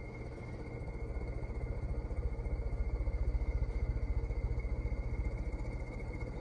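Sears (Emerson) plastic ceiling fan running on high: a steady motor hum with a thin high whine and a rapid low throb that swells in the middle and eases near the end. The motor's worn bearings add noise to the running.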